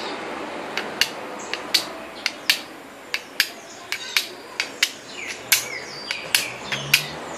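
Carbon steel knife blade struck repeatedly against a stone to throw sparks onto tinder: a series of sharp clicking strikes, irregularly spaced at about three a second.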